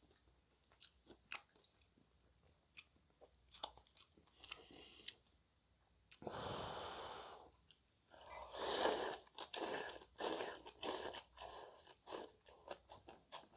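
Close-up eating sounds: soft chewing with small wet mouth clicks, then a denser run of louder chewing and crunching in the second half.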